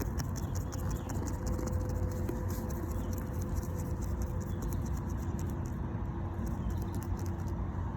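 Quick, irregular light clicking and jingling of metal zipper pulls on a backpack as a goose nibbles and tugs at them with its bill.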